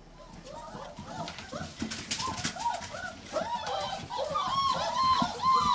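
German Shepherd puppies whining and squealing: many short cries that rise and fall in pitch, several a second and overlapping, growing steadily louder, with scattered light clicks.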